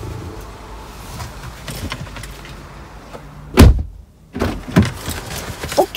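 A car door slams shut about three and a half seconds in, followed by a few softer knocks and rustling as someone settles into the back seat.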